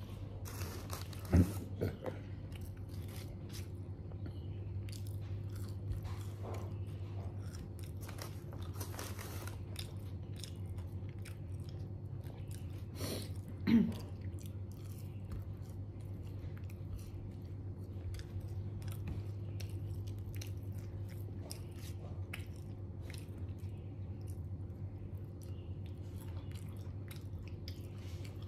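Close-up chewing and crunching of crispy fried chicken: many small mouth clicks over a steady low hum, with two short louder sounds, one about a second in and one about halfway through.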